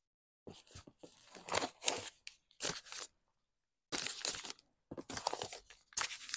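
Paper sewing-pattern envelope rustling as it is handled and turned over, in about six short bursts.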